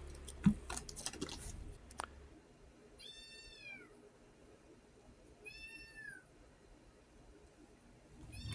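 Kitten meowing twice, short high-pitched meows that each rise and then fall, with a third starting at the very end. A few sharp clicks and handling noises come in the first two seconds.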